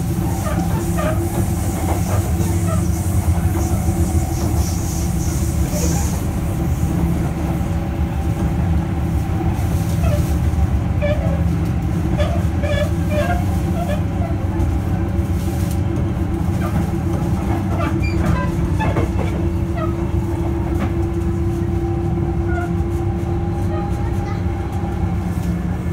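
Sotetsu 8000 series electric train with Hitachi GTO-VVVF drive running at speed, heard from on board. A steady rumble of wheels on rail runs under a steady hum, which grows stronger in the second half.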